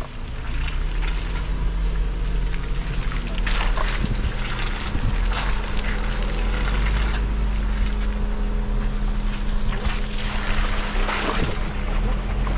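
Off-road 4x4's engine running steadily under a heavy low rumble of wind on the microphone, with scattered knocks and rattles.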